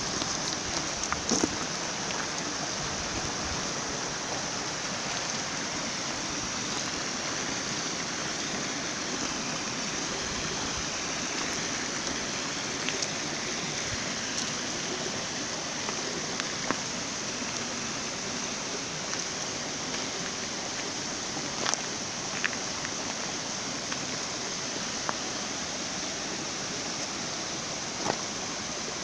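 A shallow river rushing over rocks: a steady hiss of running water, with a few short ticks scattered through it.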